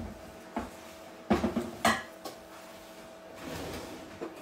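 Kitchen handling clatter: a few sharp knocks and clinks of containers and utensils on a counter, loudest about a second and a half in, then a short scraping rustle near the end, over a faint steady hum.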